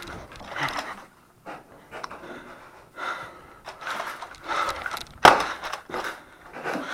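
A person breathing heavily close to the microphone, in irregular breaths. About five seconds in there is one sharp knock, the loudest sound.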